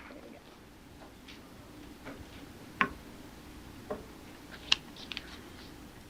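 Quiet room tone broken by a few scattered light clicks and knocks, the sharpest about three quarters of the way through.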